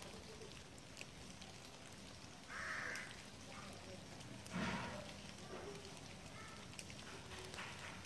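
Faint outdoor background noise, with two short, louder sounds about two and a half and four and a half seconds in.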